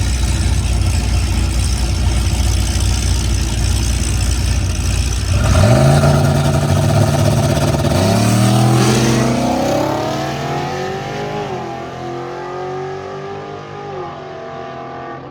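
Car engine held loud and steady for a few seconds, then accelerating away hard about five seconds in, its pitch climbing, dropping back at a gear change and climbing again as it fades into the distance.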